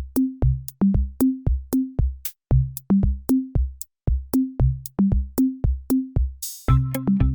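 Outro music: an electronic drum-machine beat with kick drum and plucky bass notes at about three hits a second. Near the end a short rising noise sweep brings in a fuller synth layer.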